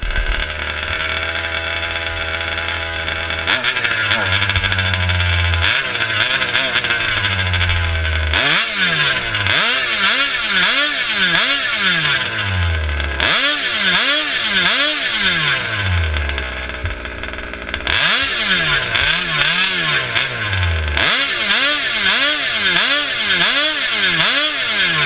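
The 29cc two-bolt two-stroke engine of a large-scale RC buggy, running with its clutch removed so it revs free with no load. It idles for about the first eight seconds, then is revved hard in quick repeated throttle blips, the pitch rising and falling about one and a half times a second, in several runs with short idle lulls between them.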